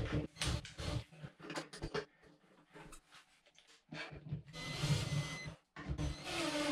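Cordless drill/driver driving the fasteners that hold a Grohe shower valve cartridge in its rough-in box. Short clicks and knocks come first, then the motor runs twice with a thin whine, the first run for over a second and a second, shorter one near the end.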